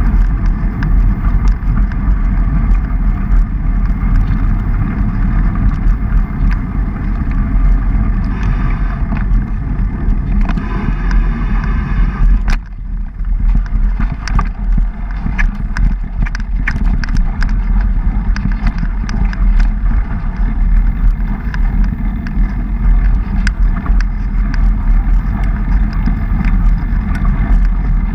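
Rumble of a mountain bike riding over a dirt trail, picked up by a bike-mounted GoPro along with wind buffeting on its microphone, with frequent small clicks and rattles from bumps in the trail. The noise briefly drops about twelve and a half seconds in.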